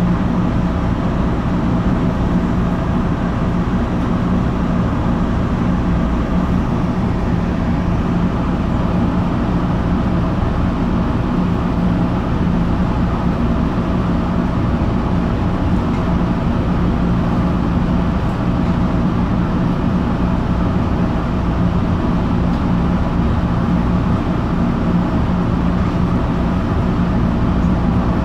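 Inside a Red Line subway car crawling along at slow speed under restricted running for switching problems: a steady rumble from the car under way, with a constant hum.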